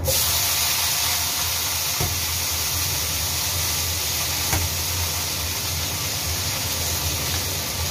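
Food sizzling in a hot pan on the stove: a steady hiss that starts suddenly at the very beginning and holds level throughout, with a low steady hum underneath and a couple of faint knocks.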